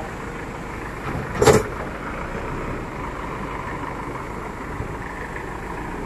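JCB backhoe loader's diesel engine running steadily, with water rushing through the opened sluice gate. A single sharp, loud knock comes about one and a half seconds in.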